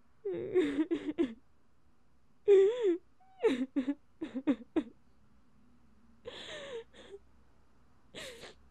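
A woman's voice making short, breathy, wordless sounds with sliding pitch, including a quick run of staccato notes about halfway through.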